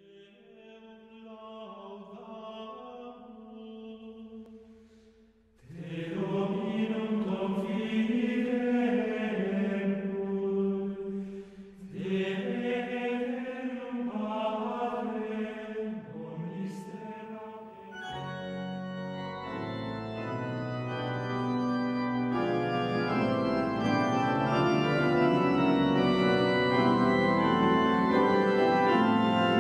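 Pipe organ music with sustained chords. The first part sounds muffled, with short breaks between phrases. About eighteen seconds in, a fuller, brighter passage of many held notes begins and grows steadily louder.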